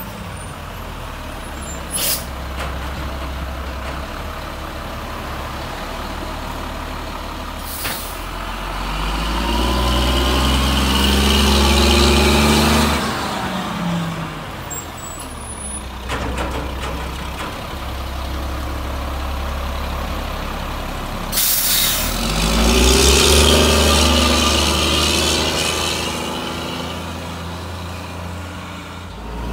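Sterling Condor garbage truck's diesel engine running as the truck drives off, twice revving up as it accelerates. A short, loud air brake hiss comes about two-thirds of the way through, and there are two brief sharp clicks in the first third.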